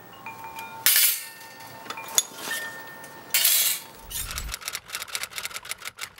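A steel burnisher drawn twice along the edge of a thin Japanese saw blade used as a card scraper, turning a hook; each stroke scrapes and leaves the steel ringing with thin tones. Near the end comes a fast run of sharp clicks, about ten a second.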